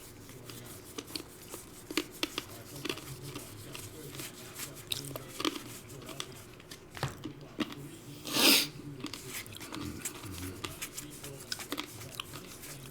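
Baseball trading cards flipped through and handled by hand: a run of small clicks and rustles, with one louder brief swish about eight and a half seconds in.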